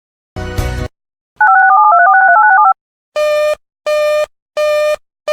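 Alert-relay signalling tones: a short crackling burst, then a rapid string of telephone touch-tone (DTMF) digits lasting about a second. About three seconds in, a run of loud, buzzy beeps starts, repeating roughly every 0.7 seconds.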